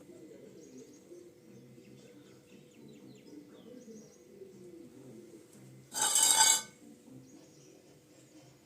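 Faint bird chirps over a low background murmur. About six seconds in there is a single short, loud, harsh pitched sound lasting under a second.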